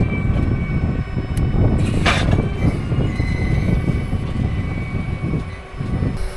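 Case IH Magnum 380CVT tractor running while the folded wing of a John Deere 2510H anhydrous ammonia toolbar unfolds, with a steady rumble from the moving steel frame. A short hiss comes about two seconds in.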